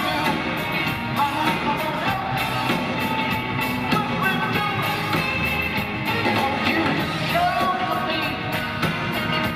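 Live rock band playing, with a man singing lead over a steady drum beat, brass and guitars, heard through the arena PA.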